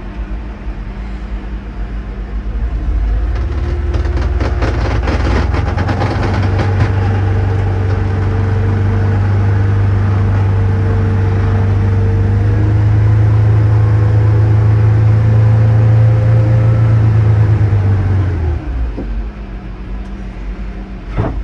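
Snobear tracked ice-fishing vehicle driving across the ice, heard from inside the cabin. The engine picks up about two seconds in and runs steadily under way, with a stretch of rattling early on, then drops back to idle near the end as the machine comes to a stop.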